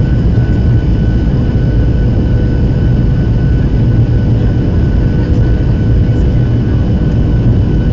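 Airliner engines and airflow heard from inside the passenger cabin on the landing approach: a loud, steady low roar with a faint constant whine running above it.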